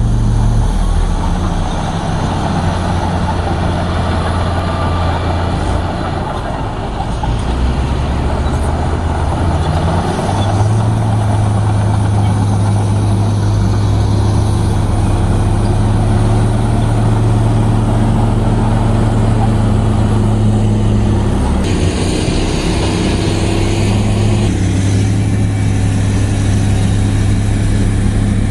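Liugong B160C crawler bulldozer's diesel engine running while working, a loud, steady, deep hum. The engine note steps up about ten seconds in and changes again a little past the two-thirds mark as the revs are varied.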